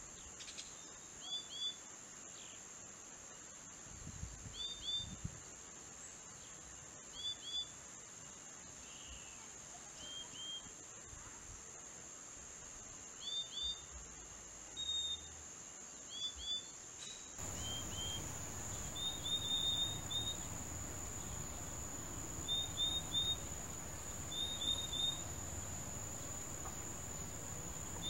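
Purple-throated euphonia (fim-fim) calling: short, clear notes given in pairs every couple of seconds, then quicker runs of three or four notes later on. A steady high insect drone runs underneath.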